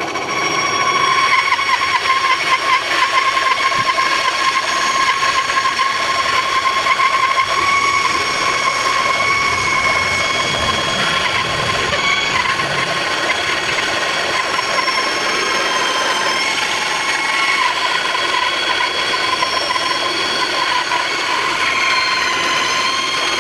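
Band saw cutting wood: a steady, high-pitched whine from the running blade over a continuous rasping cut.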